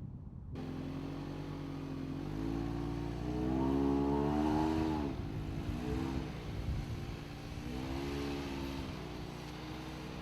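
Mitsubishi Outlander XL's 2.4-litre engine revving under load, its pitch rising and falling in surges: about two seconds in, strongest around four seconds in, and again near six and eight seconds in.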